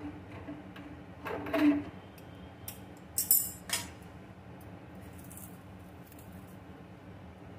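Metal spatula knocking and scraping against a metal kadai of curry, a clatter about a second and a half in and a second, sharper group of clinks about three seconds in, over a steady low background hum.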